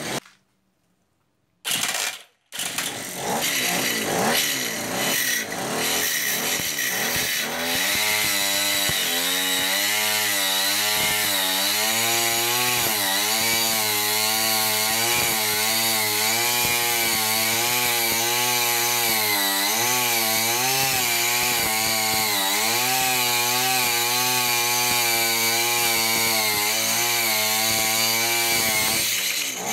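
Brushcutter's two-stroke engine driving a homemade chainsaw attachment, running at high speed with its pitch rising and falling as it works. The sound cuts out for about two seconds near the start, then picks up again.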